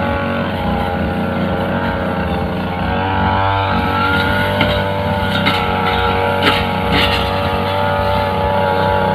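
Two-stroke brushcutter with a cutting blade running steadily at working speed, with a few brief sharp ticks in the second half.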